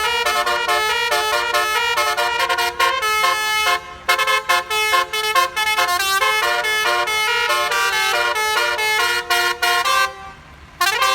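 Basuri telolet multi-tone bus horn playing a tune: a fast run of short, loud horn notes with a couple of brief breaks. Near the end comes one short blast that slides up in pitch and back down.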